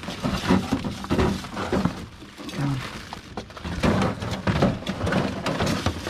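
Junk in a rubbish pile clattering as hands dig through it to pull out fire extinguishers: an irregular run of knocks and clunks of wood and metal shifting against each other.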